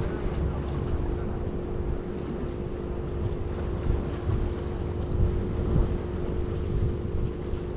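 Gusty wind buffeting the microphone, with a steady low drone of a motor running underneath.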